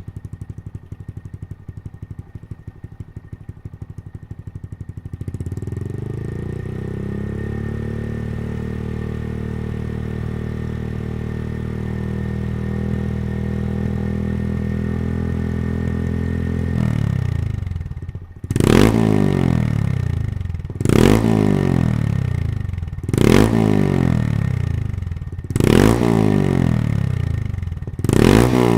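Honda Monkey 125's single-cylinder engine through a Yoshimura GP-Magnum full exhaust system, idling with distinct pulses. From about five seconds in it holds a steady higher speed, then it is blipped five times about every two and a half seconds, each rev rising sharply and falling back to idle.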